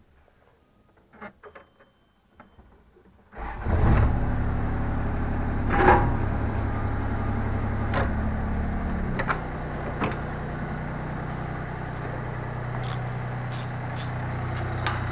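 Takeuchi TB125 mini excavator's diesel engine starting about three seconds in, after a few small clicks, then idling steadily. Its note changes about nine seconds in, and a few clinks and knocks sound over the idle.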